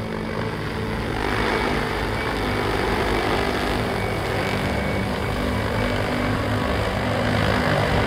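Large four-rotor agricultural seeding drone hovering just above the ground, its propellers running with a steady whir and rush that grows louder about a second in.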